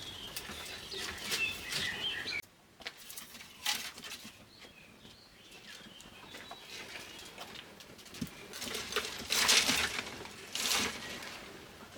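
Small birds chirping for the first couple of seconds, then brief bursts of rustling or flapping noise, the loudest a little past the middle and near the end.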